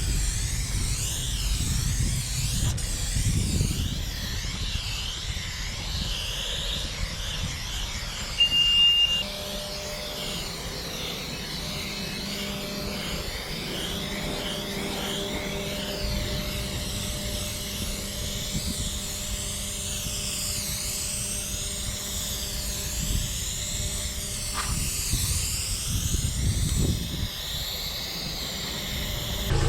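Aerosol spray-paint can fitted with a wide Astro Fat Cap nozzle, hissing in long sprays whose tone keeps shifting as the can moves, over a low rumble.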